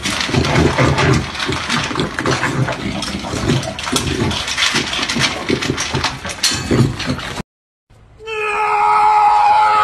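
A puppy eating dry kibble from a bowl: fast, irregular crunching and smacking. About two seconds before the end, a steady high-pitched tone with a few overtones starts.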